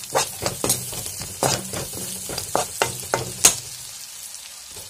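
Metal perforated spatula scraping and knocking against a kadai as onions and ground spices fry in hot oil, with a steady sizzle underneath. The strokes come a few times a second, the loudest about three and a half seconds in, and they ease off near the end.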